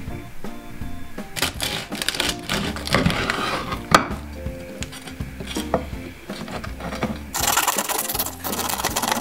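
A knife sawing through the crisp crackling of a roast pork porchetta, heard as a crunchy rasping in two bouts: one from about one and a half seconds in, the other from about seven and a half seconds in. A sharp knock comes about four seconds in. Background music plays throughout.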